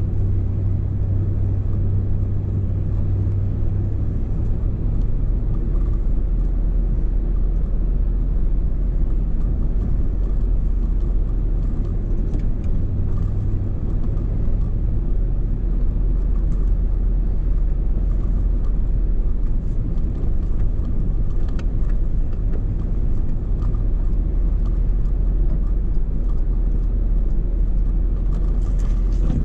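Truck engine and tyres droning steadily, heard from inside the cab while driving over a snow-covered road. The engine note drops to a lower rumble about four seconds in.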